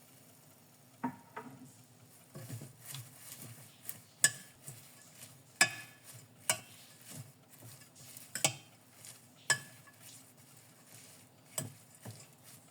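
A spoon stirring kale in a frying pan, clinking and scraping against the pan in irregular sharp taps roughly a second apart.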